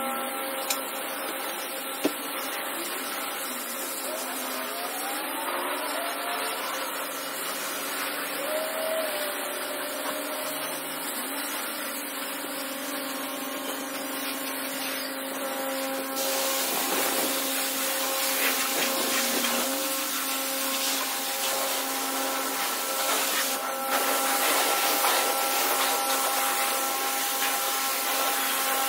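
Car wash pressure-washer spray running: a steady hiss over the hum of the pump machinery, getting louder about halfway through.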